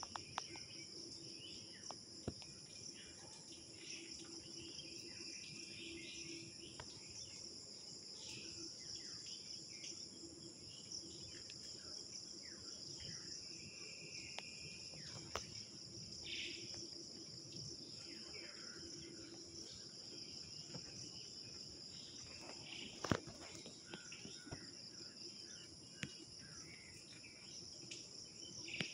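A dense, steady chorus of insects trilling, with a few short calls now and then and a single sharp click about 23 seconds in.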